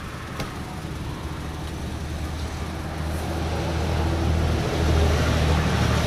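A motor vehicle's engine rumbling close by, swelling louder about three seconds in and peaking near the end, over traffic noise. A single short knock about half a second in.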